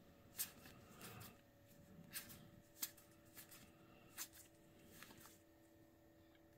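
Trading cards being flipped one at a time and slid from one hand's stack to the other: quiet, soft card-on-card flicks and slides, roughly one a second.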